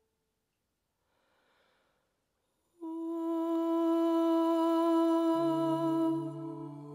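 Near silence for nearly three seconds, then ambient music: a single held note with a slight waver comes in suddenly, and a lower held note joins it about two seconds later.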